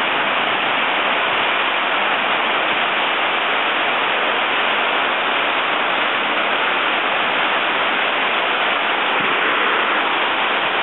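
Heavy thunderstorm downpour: rain pouring down in a steady, even hiss.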